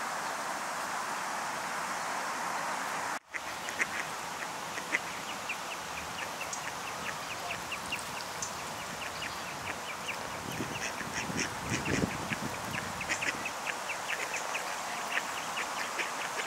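Female mallard feeding on grass, her bill nipping and plucking blades in rapid short clicks, several a second, from about four seconds in. Before that a steady background hiss that cuts off abruptly about three seconds in.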